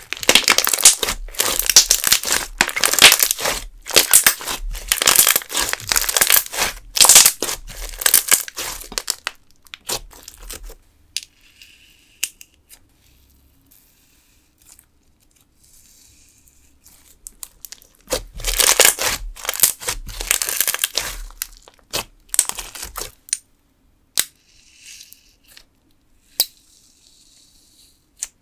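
Hands squishing, pinching and stretching a clear green glitter slime, making a dense run of sticky pops and crackles for the first ten seconds and again about 18 to 23 seconds in, with quieter scattered clicks in between and near the end.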